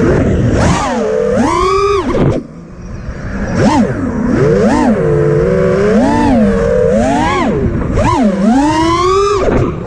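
FPV quadcopter's motors and propellers whining, the pitch swooping up and down with the throttle. They ease off briefly about two and a half seconds in, then spool back up.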